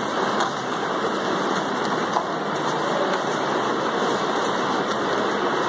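A steady rushing noise with a few faint clicks.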